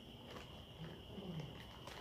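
Faint scattered clicks and rustles of a parcel being opened by hand, against a steady thin high whine. A brief low falling hum comes a little over a second in.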